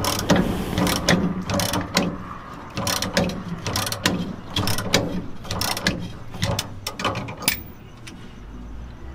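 Socket ratchet wrench clicking in quick runs as it is worked back and forth on a leaf-spring shackle bolt, the clicks thinning out near the end.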